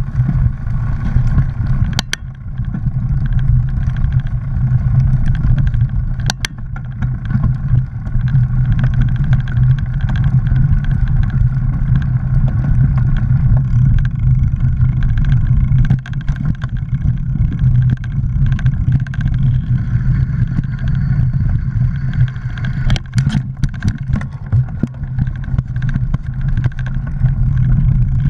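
Mountain bike riding over a dirt forest trail, heard through a bike-mounted action camera: a steady loud rumble of tyres and frame vibration, with sharp knocks from bumps about two and six seconds in and again near the end.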